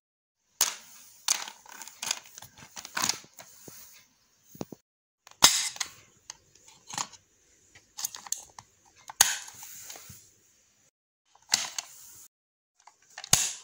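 Sharp, irregular plastic clicks and snaps from a Kiwi push-button pencil box as its buttons are pressed and its compartments open and close, with short gaps between them.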